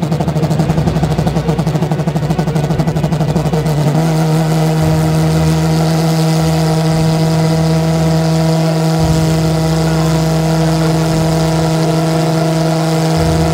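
Homemade valveless pulsejet running loud: a low buzzing drone, rough and wavering at first, that settles into a steady, even note about four seconds in.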